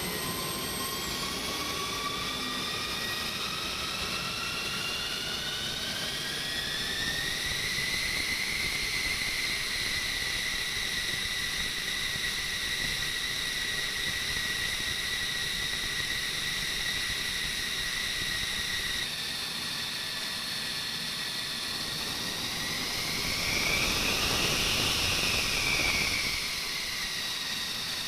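F-16 jet engine whining on the ground, its pitch rising over the first several seconds and then holding a steady high whine. Around two-thirds of the way through the pitch dips slightly, and near the end the sound swells louder with a brief rise and fall in pitch before settling back.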